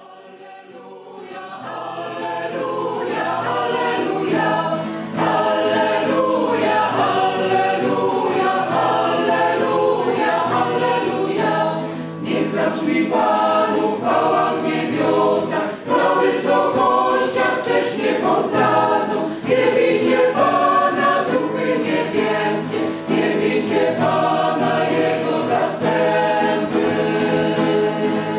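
Choral music, a choir singing with accompaniment, swelling in over the first few seconds; sharp percussive hits join about twelve seconds in.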